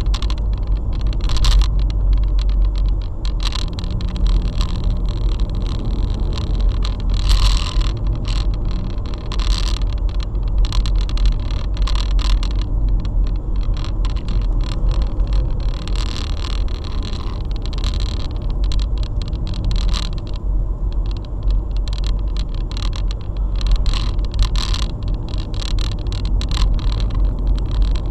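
Car driving on an open road, heard from inside the cabin: a steady low rumble of engine and tyres, with short irregular bursts of higher-pitched hiss and rattle coming and going.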